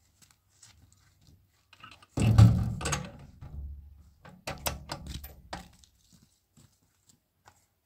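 A heavy thump about two seconds in, followed a couple of seconds later by several sharper knocks and clatters.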